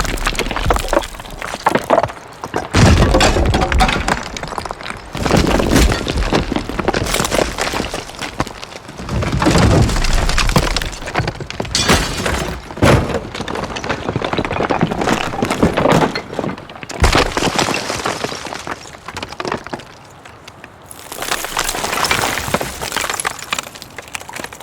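A run of building-collapse sound effects: several separate crashes of falling masonry and debris, each with rubble crumbling and clattering down afterwards. There is a quieter stretch near the end before a last burst of debris.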